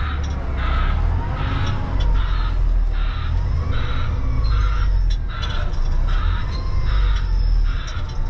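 Reversing alarm beeping steadily, about one and a half beeps a second, over the low rumble of a diesel truck engine as the tractor-trailer backs up.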